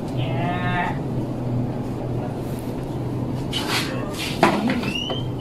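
A short held humming tone near the start, then knocks and scrapes as a wooden longboard is handled and its tail is knocked on the floor about four seconds in, with a brief squeak near the end, over a steady low hum.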